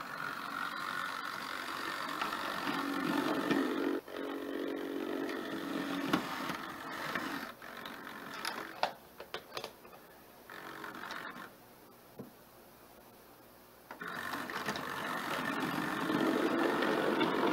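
OO gauge model train running on the track: a small electric model locomotive, a GWR pannier tank, hauling coaches with a steady mechanical whirr of motor and wheels. A run of sharp clicks about halfway through, a quieter stretch, then the running noise grows louder again near the end as the coaches pass close by.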